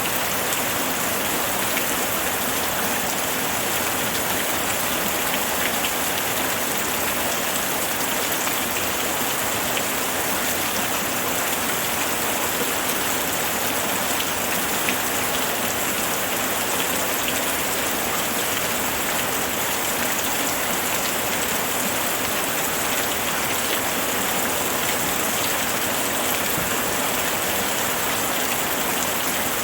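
Steady rainfall, an even hiss of rain with scattered drops pattering on surfaces.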